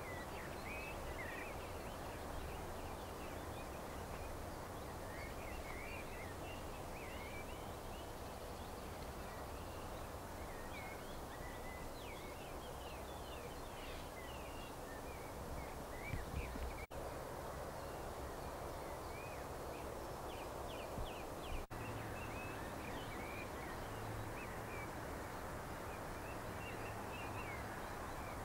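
Several birds singing and calling at once, a dense run of short chirps and twitters, over a steady low background rumble. The sound drops out for an instant twice, about 17 and 22 seconds in.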